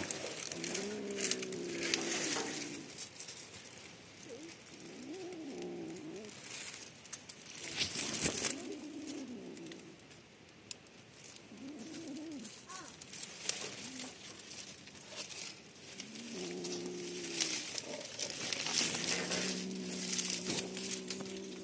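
Tabby kitten growling low over the fish it is eating, in several drawn-out rumbles, some rising and falling in pitch, with crackling of dry leaves and chewing between them.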